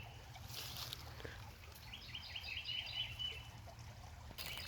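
A bird calling: a rapid series of high chirps, about six a second, from about two seconds in for a second and a half. Over a steady low rumble, with a brief rustle early on and a louder rustle of leaves near the end.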